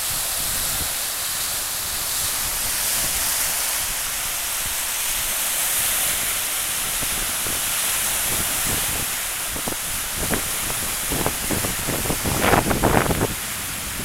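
Wind-driven waves breaking and washing up a sandy shore, a steady hiss of surf and wind. Toward the end, gusts buffet the microphone in uneven bursts.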